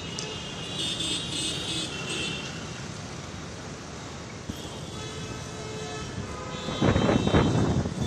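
City street traffic: vehicles running steadily, with horns sounding twice, and a louder burst of noise for about a second near the end.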